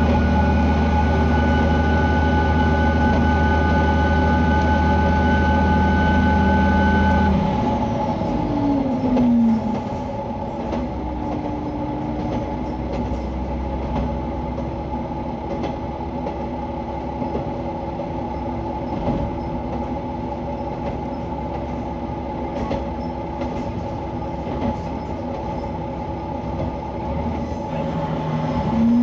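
KiHa 120 diesel railcar heard from inside the car: the diesel engine runs hard at a steady note, then about seven seconds in it throttles back and its note falls away. The car then runs on more quietly with a steady hum and occasional clicks from the rails, until near the end the engine note rises again as power comes back on.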